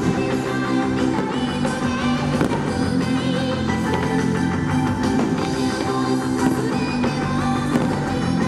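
Anime song in a rock style with guitar and drums, played loud over the stadium's sound system to accompany a fireworks show.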